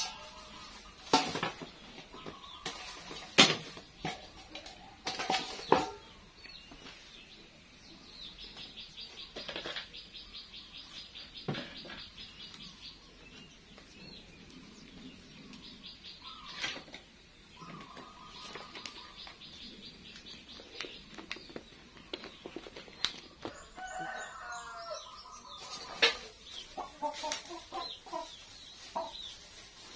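Chickens clucking and calling, on and off. In the first few seconds there are several sharp clatters of metal pots and bowls.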